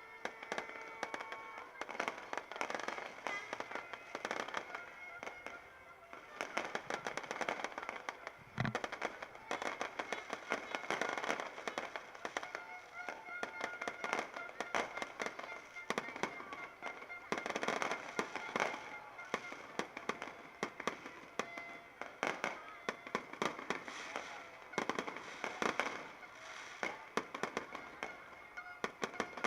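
Fireworks popping and crackling in a dense, irregular stream of rapid bangs, with one deeper boom about nine seconds in.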